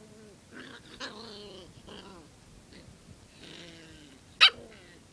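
Puppy growling in play, with one short, sharp bark near the end that is the loudest sound.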